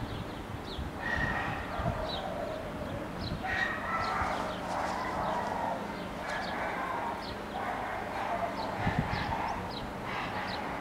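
Outdoor animal calls: short, high chirps scattered throughout, with longer calls lasting a second or two, several times, over a steady background.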